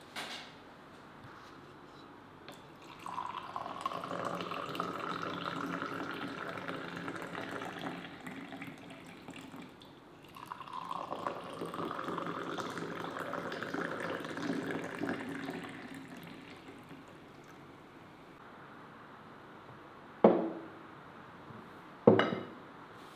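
Hot tea poured from a glass teapot into two tulip-shaped glass tea glasses, one after the other. Each pour lasts about five seconds, and its pitch rises slowly as the glass fills. Two sharp knocks follow near the end.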